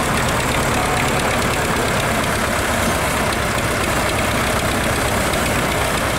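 Tractor diesel engines running steadily at close range, a low, even engine hum with no revving.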